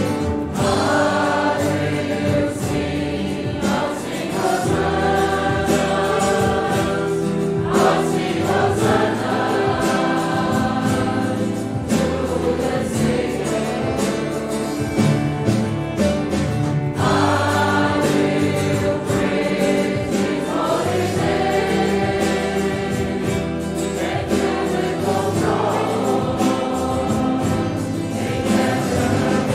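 Congregation singing a gospel hymn in chorus with instrumental accompaniment.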